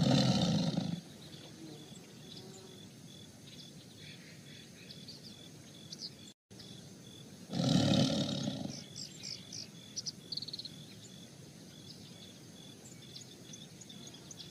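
Tigers growling during a play-fight: two loud growls, about a second each, one at the start and one about eight seconds in.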